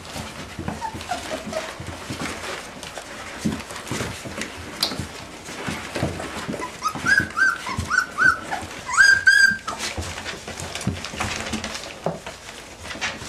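A litter of puppies whimpering and squealing over constant rustling and shuffling. A cluster of short high squeals comes a little past the middle, the loudest and longest about two-thirds of the way through.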